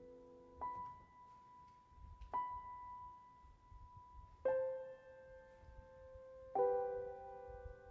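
Slow, sparse piano-like keyboard music: four held notes or chords struck about two seconds apart, each left to ring and fade, the last two fuller chords.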